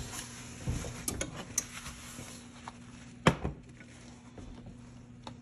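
Kitchen handling sounds as a cloth wipes spilled brown sugar off a glass stovetop: light rubbing and a few clicks, with one sharp knock about three seconds in, over a faint steady hum.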